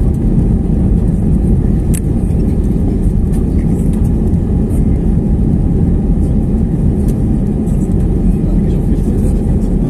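Cabin noise of an Airbus A320neo in its initial climb after takeoff: its Pratt & Whitney PW1100G geared turbofan engines at climb power and the rush of air past the fuselage, a steady deep rumble heard by the wing. A single brief click about two seconds in.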